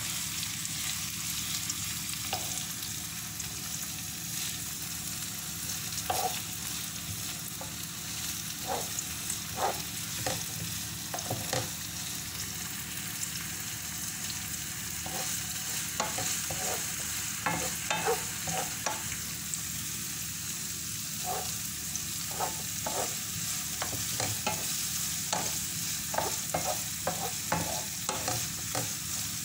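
Sliced onions sizzling steadily in oil in a nonstick frying pan, with a wooden spatula knocking and scraping against the pan now and then, more often in the second half.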